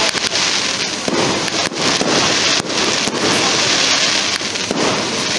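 Aerial fireworks going off in a dense barrage: continuous crackling with many sharp bangs.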